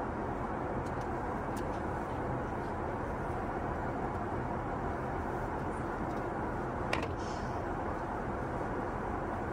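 Steady cabin noise of an Airbus A380 airliner, an even rush with no break, with one sharp click about seven seconds in.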